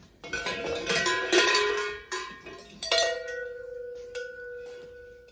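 A bunch of large gold metal cowbell-style bells hung on jute rope, clanking together as they are picked up, then ringing on with a long, slowly fading tone after a stronger strike about three seconds in.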